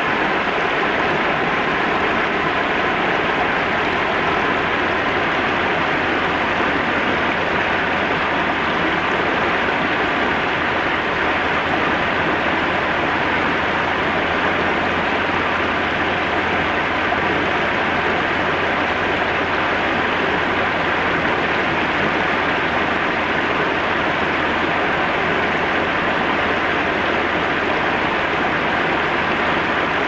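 River water spilling over a low concrete weir and rushing through shallow rapids: a steady, unbroken rush of flowing water.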